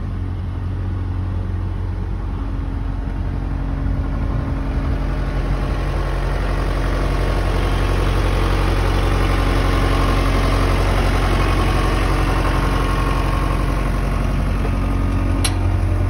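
Diesel engine of a 2004 JCB Robot 170 skid steer loader running steadily, growing louder over the first ten seconds or so. A single sharp click comes about a second before the end.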